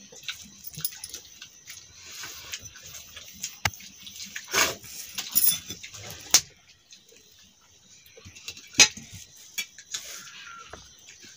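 People eating rice and curry by hand from steel plates: wet chewing and mouth sounds with irregular sharp clicks and clinks of fingers and steel dishes, the loudest about halfway through and again about two-thirds in.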